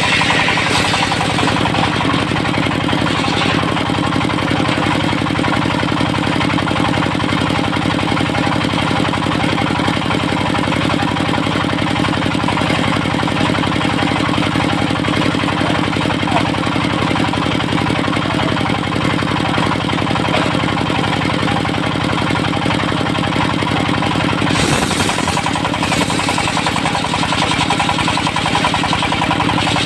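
Diesel engine of a portable circular sawmill running steadily at working speed, with a rapid even beat. About 25 seconds in, a short burst of hiss joins it and the engine's tone shifts.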